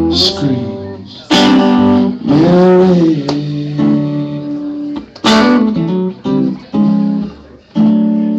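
Acoustic guitar strummed chords in a live song, with hard strums about a second in and again about five seconds in. Recorded through a phone's microphone.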